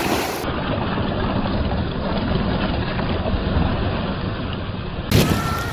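Rushing surf and whitewater with wind rumbling on the microphone, and a sudden louder burst about five seconds in.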